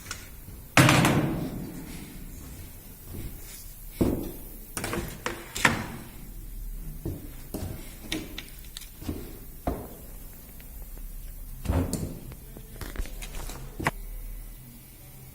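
A two-head PVC window welding machine at work, giving a run of irregular knocks and clunks. The loudest comes about a second in and rings on briefly.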